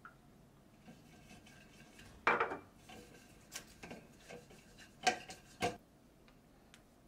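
Silicone pastry brush greasing a metal bundt pan with melted butter: soft brushing and a few sharp knocks of the brush against the pan and the butter glass. The loudest knock comes about two seconds in, and two more come a little after five seconds.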